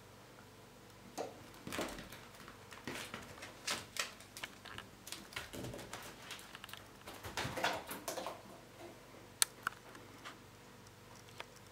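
A cat batting a small ball toy across a carpeted floor: irregular taps, knocks and scuffles of the toy and paws, with two sharp clicks near the end.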